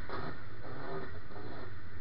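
1926 Salmson twin-cam race car's engine idling with a steady low engine note.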